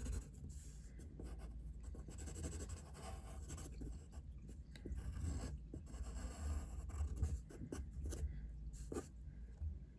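A drawing tool scratching on paper in short, irregular strokes, shading in part of a drawing, over a steady low hum.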